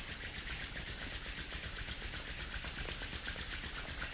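Palms rubbing together to warm them: a steady swishing of skin on skin in an even rhythm of about six strokes a second.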